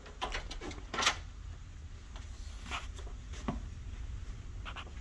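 Hotel room door being opened and handled: latch and handle clicks, the sharpest about a second in, then faint scattered clicks and rustles.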